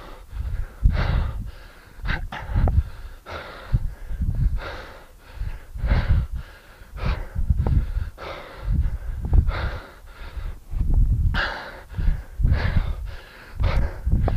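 A man breathing hard and forcefully, a sharp breath with each two-handed kettlebell swing, about one a second, from the heavy exertion of a high-intensity work interval.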